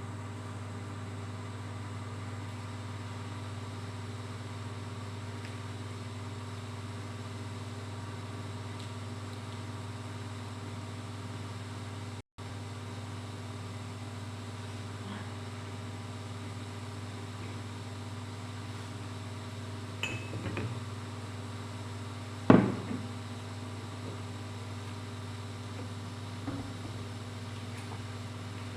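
A steady low mechanical hum, with a few light clinks of dishes and utensils during eating and one sharp knock about two-thirds of the way through, the loudest sound.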